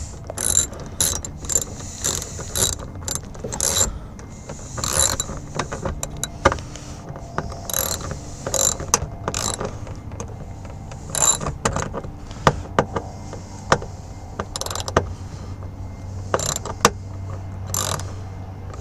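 Hand ratchet clicking in runs of strokes, about two or three clicks a second with short pauses, as an interior trim bolt is driven in.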